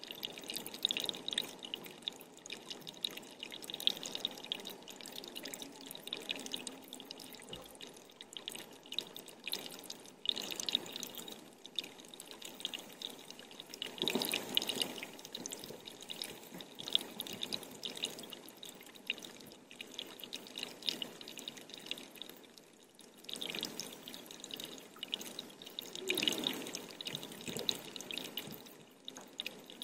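Water dripping, many small drops at once, running on with louder stretches about halfway through and again near the end.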